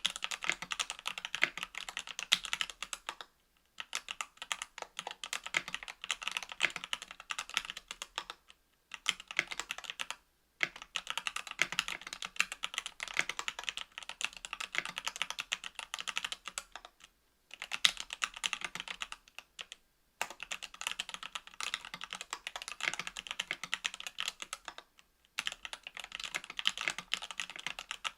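Mechanical keyboard typing: stock, unlubricated Equalz C³ Macho 62 g linear switches in an aluminium KBDfans Tofu 65% case and plate, under GMK keycaps. Fast runs of keystrokes several seconds long, broken by short pauses of under a second, about six times.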